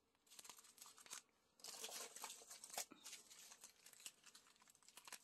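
Faint crinkling of small plastic zip-lock bags of diamond-painting drills being handled and turned in the fingers, with little irregular clicks.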